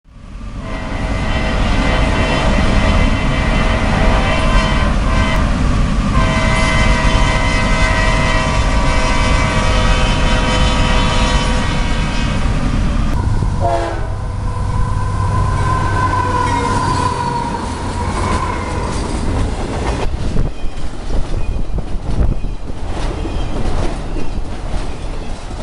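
CSX freight train: a locomotive air horn blows a long chord through the first half, drops in pitch about halfway as it passes, and then freight cars roll by with their wheels clacking over the rail joints.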